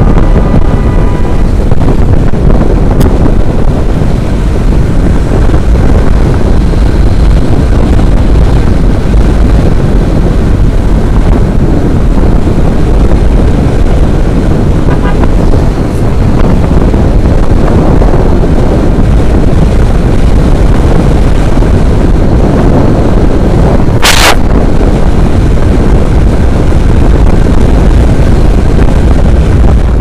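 Heavy wind buffeting on a helmet-mounted microphone, mixed with a motorcycle running along at road speed. A horn sounds briefly at the start, and a short hiss cuts through about four-fifths of the way in.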